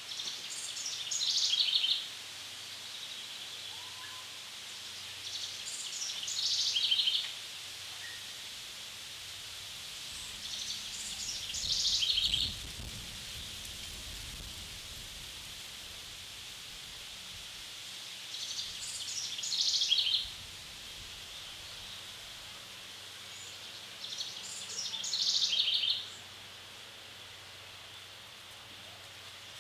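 A songbird sings the same short phrase five times, about every five to seven seconds. Each phrase lasts about two seconds, drops in pitch and ends in a rapid run of notes. The songs sit over a steady high hiss of forest ambience.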